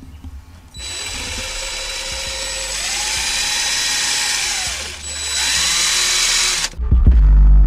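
DeWalt cordless drill driving sheet metal tapping screws into the truck body: a motor whine in two runs, the first about four seconds long and the second shorter after a brief break about five seconds in, its speed rising and falling as it drives. Near the end, loud bass-heavy music cuts in.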